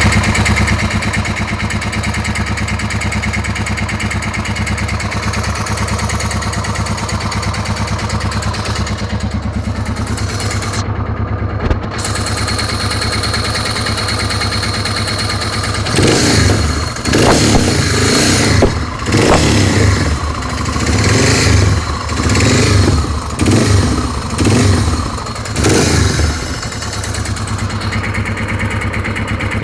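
Suzuki DR650's single-cylinder four-stroke engine idling steadily, then blipped repeatedly about once a second from about halfway through. The owner posts it for a noise in the engine that he cannot place.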